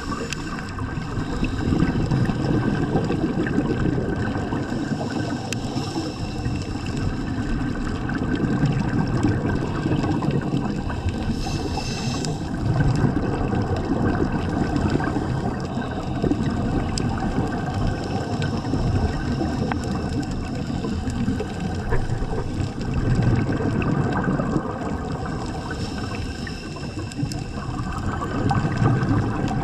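Scuba diver's regulator breathing heard underwater: a muffled bubbling rumble that swells and eases every few seconds as the diver breathes. Faint steady high tones sit underneath.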